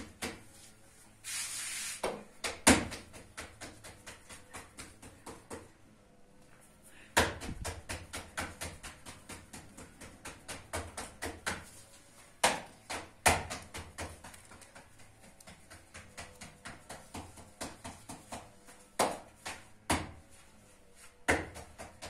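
Hands patting and slapping pieces of bread dough flat on a plastic sheet: a rapid run of soft pats, two or three a second, with a few sharper slaps among them.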